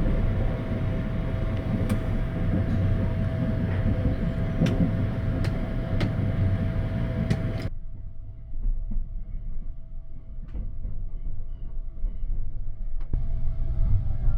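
Sunrise Express sleeper train (285 series electric train) running on the rails, heard from on board: a steady rumble with a faint steady whine and a few sharp clicks. About eight seconds in it cuts off abruptly to a much quieter low rumble.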